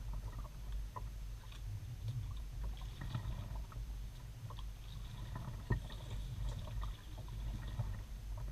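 Kayak being paddled, picked up by a GoPro mounted on the bow: a steady low rumble through the hull with scattered small clicks and a sharper knock a little before six seconds in.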